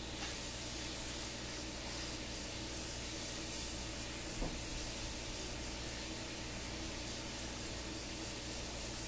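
Steady background hiss with a low hum, and one soft click about four and a half seconds in.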